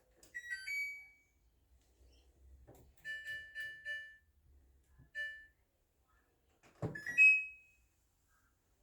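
Washing machine control panel beeping as its buttons are pressed: a short two-note rising chime, a quick run of three beeps, a single beep, then a knock followed by a longer, louder beep.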